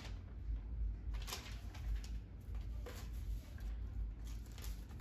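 Low steady room hum with a few faint, short rustles and taps from paper cards being handled and put down on a table.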